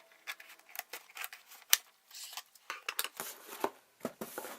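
A cardboard Loot Crate box being opened by hand: a quick run of short scrapes, clicks and crinkles of cardboard and packaging, with one sharper click about two seconds in.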